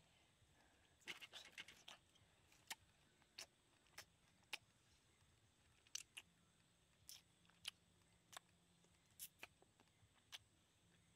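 Faint mouth sounds of someone eating rambutan fruit: a quick run of clicks and smacks about a second in, then single clicks of chewing and lip-smacking every half second to a second.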